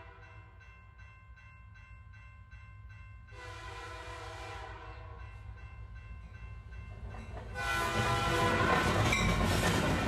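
Train horn sounding, with a louder blast about a third of the way in. About three-quarters through, the loud rush of the train passing close sets in, with the horn still sounding over it.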